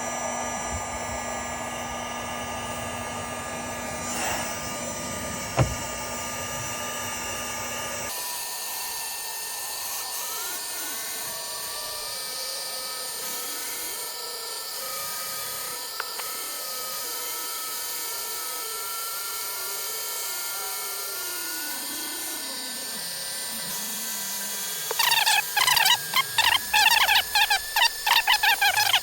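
Ryobi 18V heat pen running steadily, its small fan motor blowing hot air onto scratched plastic trim. About 8 seconds in the sound changes and its pitch wavers. Near the end a loud, fast-pulsing buzz takes over.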